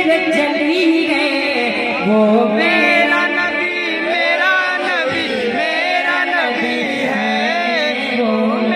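Solo male voice singing a naat, drawn-out melismatic phrases with the pitch gliding up and down and a long held low note under them from about two seconds in.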